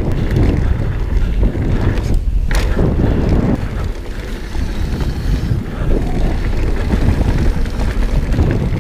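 Mountain bike riding fast down a dirt trail: wind buffeting the microphone and the rumble of tyres and bike over rough ground, with a sharp knock about two and a half seconds in.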